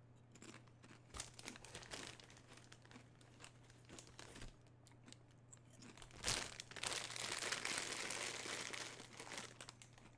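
Potato chips being crunched in the mouth, a few crisp crackles at a time, then about six seconds in a sharp rustle and a few seconds of loud crinkling from the plastic chip bag being handled.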